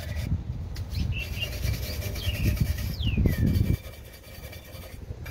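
Wire brush scrubbing rust off the brake-shoe contact points of a 1993 Ford Bronco's rear drum-brake backing plate, in uneven scraping strokes that stop about three quarters of the way through. A bird chirps a few times in the background.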